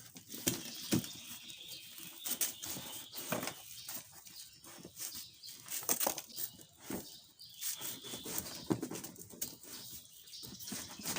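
Box and packaging being opened and handled by hand: irregular rustling, crackling and light knocks.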